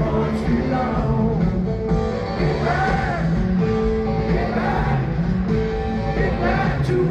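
Live rock band in a stadium: a male lead singer carries the melody over electric bass, guitars and drums, heard through the venue's sound system from among the audience.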